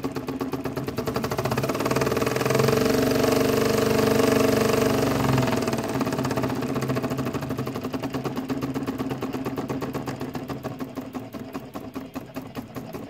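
Small model spool-valve engine running fast with a rapid, even beat. It speeds up over the first few seconds, then gradually slows from about five seconds in.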